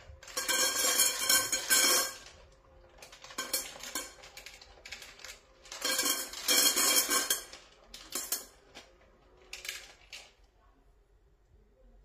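Dry kibble rattling and clinking against a stainless steel pet-feeder bowl, in about five short bursts of a second or two with pauses between.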